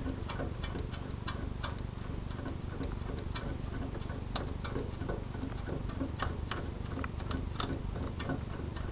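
Small, irregular clicks and ticks from a hand working inside an opened Sanyo VHR 2250 VCR's tape mechanism, over a steady low hum.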